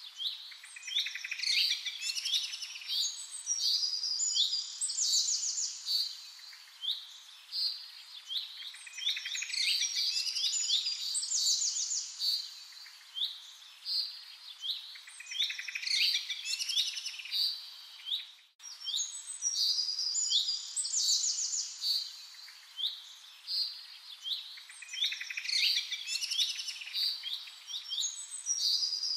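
Birds singing and chirping, a steady chorus of quick high calls in a pattern that recurs every few seconds, with a very short break about two-thirds of the way through.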